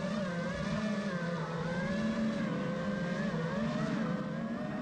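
Brushless motors and 5-inch propellers of an Armattan Rooster FPV quadcopter whining, heard from its onboard camera, the pitch rising and falling continually with the throttle.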